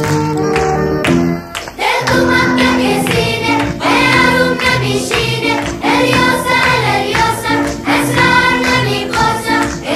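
Background music: a group of voices singing a chanting, rhythmic song over a beat, coming in after a short instrumental lead-in with a brief dip about two seconds in.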